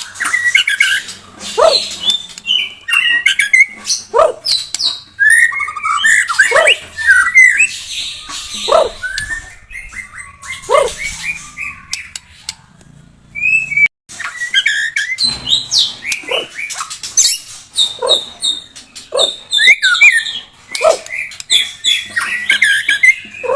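White-rumped shama (murai batu) singing a rapid, varied song of whistled phrases, mixed with short harsh notes that drop steeply in pitch every second or two. The song eases off for a few seconds around the middle, then breaks off suddenly and starts again.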